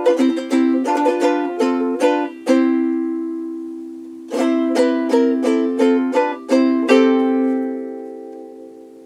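Cultivate Ukulele D0M soprano ukulele, a Ditson-style dreadnought body of solid African mahogany with fluorocarbon strings and a Delrin nut and saddle, played as a phrase of quick plucked melody notes over chords. A final chord comes about seven seconds in and is left to ring and fade away.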